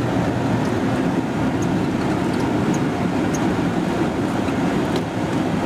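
Pickup truck driving, heard from inside the cab: steady low engine and road noise with no change in speed.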